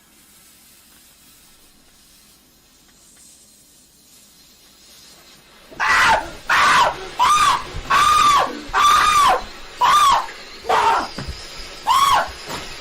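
Faint hissing for about six seconds, then a person screaming over and over in loud, short, high cries of about half a second each.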